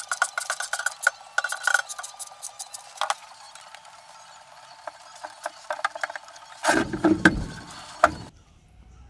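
Handling clatter of a rubber sheet and an aluminium plate on a wooden workbench: rapid clicks and rattles at first, then a louder clatter with a couple of knocks near the end.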